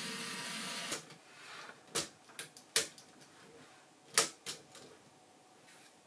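A LEGO electric motor drives a Reuleaux-triangle mechanism with a steady whir that cuts off about a second in. Then come five or six sharp, separate plastic clicks and knocks.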